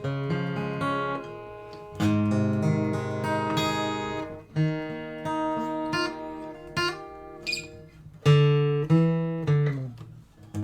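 Acoustic guitar strummed, a series of chords struck about every one to two seconds and left to ring, picked up loud on a sensitive condenser microphone with the gain turned up.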